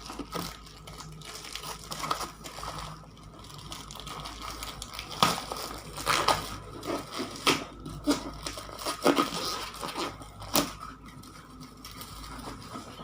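A ring light's packaging being unwrapped and opened by hand: irregular rustling with scattered short, sharp handling noises, the sharpest about five, six, nine and ten and a half seconds in.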